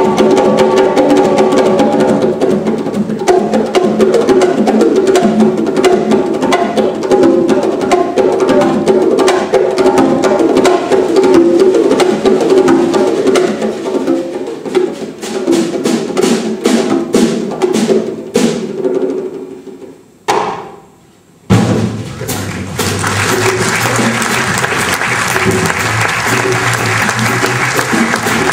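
Conga and bongo solo: dense, rapid hand strikes that thin out into sparse single hits, then a short pause about twenty seconds in. The jazz big band then comes in together.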